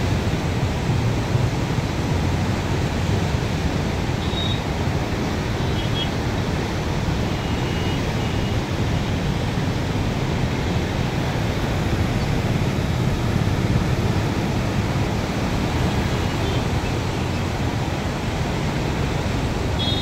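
Krishna River floodwater pouring through the open barrage gates and churning downstream, a steady, unbroken rush of heavy water flow.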